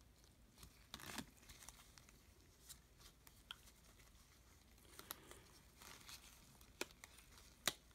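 Faint, scattered soft clicks and rustles of a stack of trading cards being leafed through by gloved hands, with a few slightly sharper clicks about a second in and near the end.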